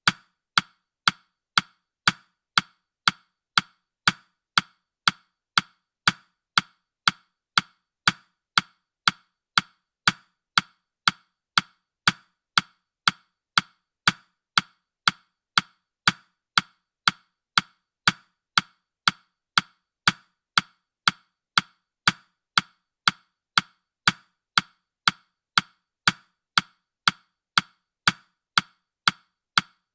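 Countdown-timer ticking sound effect: short, woody clock-like ticks, about two a second, perfectly even and unchanging.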